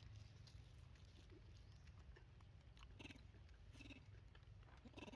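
Faint sounds from a monkey: a few short squeaks and clicks, spaced about a second apart, over a low steady hum.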